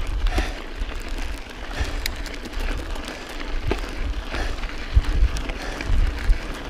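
Mountain bike rolling over a loose gravel trail: tyres crunching and the bike rattling, under a low rumble of wind buffeting the microphone, with a couple of heavier bumps about five and six seconds in.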